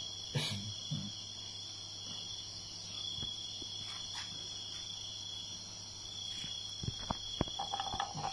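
Steady high-pitched insect trilling from crickets or cicadas, over a low hum. A few light clicks and taps come near the start and again near the end.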